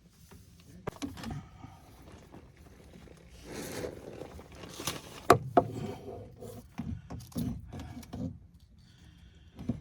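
Irregular scraping, rustling and knocking of a well bladder pressure tank being shifted into place, with a longer scrape about three and a half seconds in and a sharp knock a little after five seconds.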